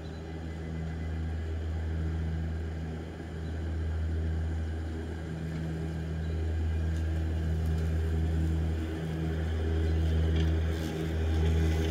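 EGO battery-electric zero-turn mower running, its motors making a steady hum that grows louder as it drives closer.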